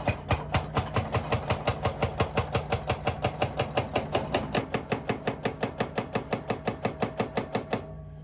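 A powered rock breaker hammering on rock in fast, even blows, about six a second, over a running engine. The blows stop near the end and the engine keeps running.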